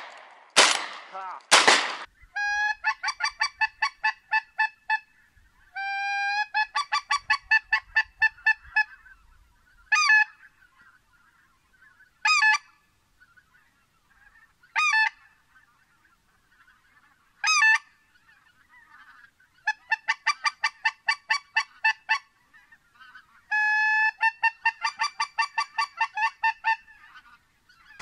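Two shotgun shots about a second apart, then geese honking: quick runs of repeated honks alternating with single drawn-out calls spaced evenly a few seconds apart.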